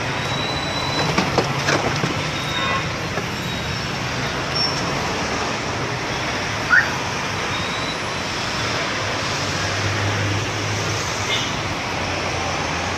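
Steady roadway traffic noise from a busy city street, with a few knocks early on and one brief, sharp rising chirp about halfway through.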